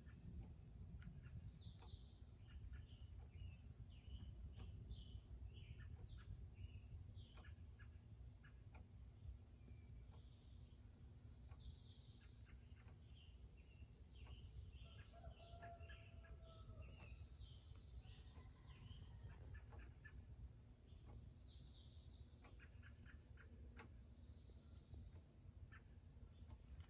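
Faint woodland birdsong: one bird's song phrase, falling in pitch, recurs about every ten seconds amid scattered short chirps from other birds. Under it run a steady high insect drone and a low background rumble.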